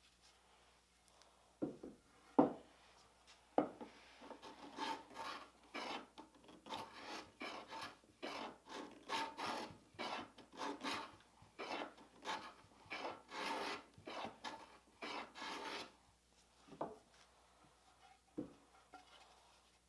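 Wood being worked by hand with an abrasive tool, in back-and-forth strokes about twice a second for some twelve seconds. A few sharp knocks of wood come before and after the strokes.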